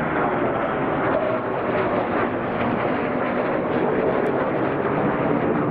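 Pair of F-22 Raptor fighter jets passing overhead in formation. Their Pratt & Whitney F119 turbofan engines give loud, steady jet noise with no letup.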